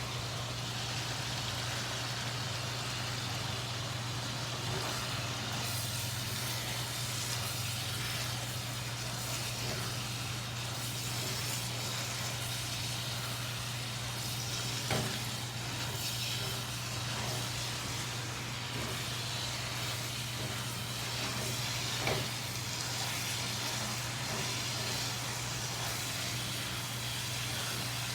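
Food sizzling in a frying pan, a steady hiss over a low hum, with two brief knocks partway through.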